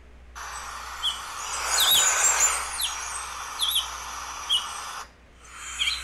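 Recorded Crimson-backed Tanager calls: short, sharp down-slurred notes repeated about once a second over the steady hiss of a field recording, with a cluster of higher chirps about two seconds in. The recording cuts off about five seconds in and another begins near the end.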